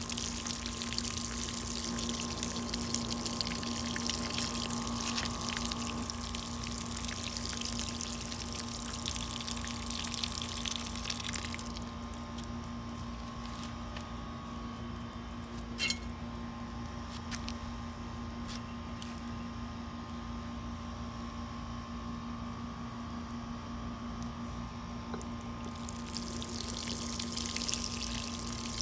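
A watering can with a sprinkler rose sprinkles water onto loose potting soil in a plant pot, a steady hissing spray that stops about twelve seconds in and starts again near the end. A single click falls in the pause. Under it all runs the steady hum of an air conditioner.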